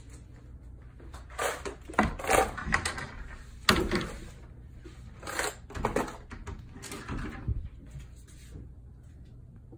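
Bifold closet doors being opened and handled: a series of irregular knocks and rattles over several seconds.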